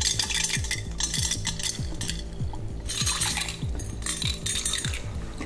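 Liquid poured from a glass carafe packed with ice into a drinking glass: ice clinking and rattling against the glass, and the liquid splashing, in several bursts as the pour goes on.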